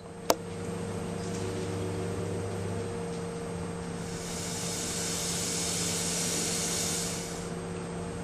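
Kitchen tap running into a stainless steel sink: a steady hiss with a low hum under it. There is a sharp click just after the start, and the hiss turns brighter for a few seconds in the middle.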